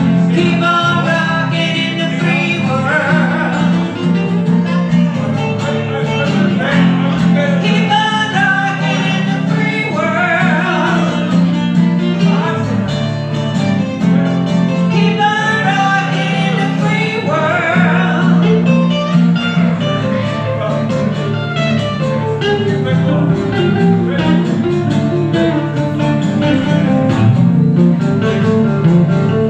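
Live acoustic music: two acoustic guitars played together, with a voice singing over them for much of the time.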